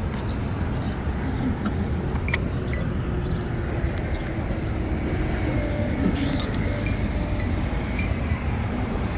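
Road traffic running through an intersection: a steady rumble of passing cars, with a few faint ticks over it.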